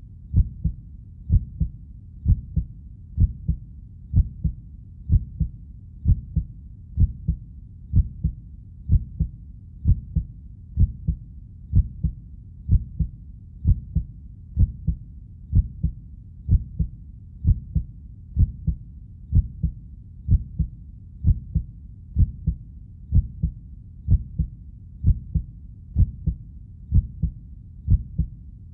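Heartbeat in a steady lub-dub rhythm: a pair of low, dull thumps about once a second, even in pace and strength throughout.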